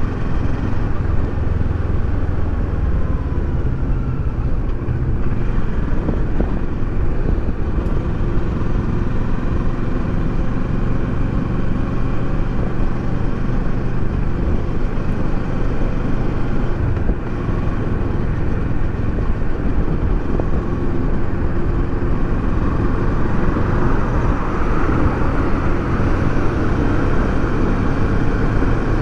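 Kawasaki Versys 650's parallel-twin engine running as the motorcycle rides along the road, with wind and road noise over it; near the end the revs climb as it accelerates.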